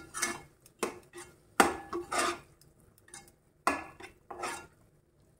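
Wooden spatula scraping and knocking against the inside of a stone-coated nonstick pot, stirring thick masala paste in quick, irregular strokes that stop near the end.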